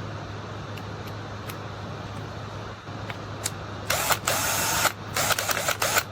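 Cordless drill motor spun up by trigger pulls about four seconds in: one run of about a second, then several short blips, each whirring up and winding down.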